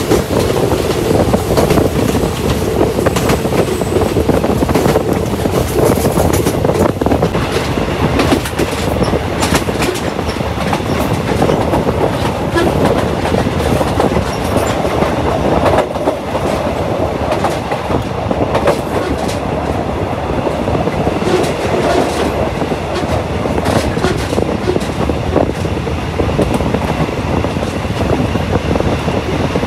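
Passenger train running along the track, its wheels clicking steadily over the rail joints over a constant rumbling rush of rolling noise.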